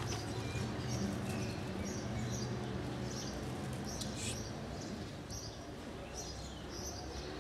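Small birds chirping in short high notes, repeated about every half second to a second, over a steady low hum.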